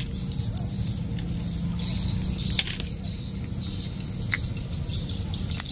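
A plastic toy train locomotive being handled, giving a few sharp clicks, over a steady low outdoor rumble with faint high chirping.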